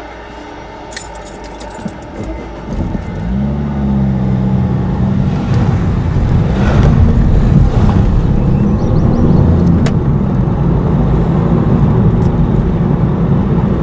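Car engine pulling away and accelerating, heard from inside the car's cabin, its note rising about three seconds in and then running loud with road rumble. A few light clicks come in the first couple of seconds before it moves off.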